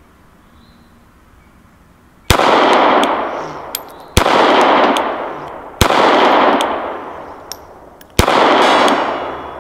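Four single shots from a semi-automatic VZ 61 Skorpion in .380, fired a second and a half to two and a half seconds apart, beginning about two seconds in. Each crack is followed by a long echo that dies away over more than a second.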